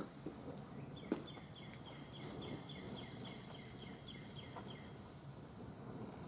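A bird calling in a quick run of short falling chirps, about four a second, for about four seconds over faint outdoor background; a single sharp click about a second in.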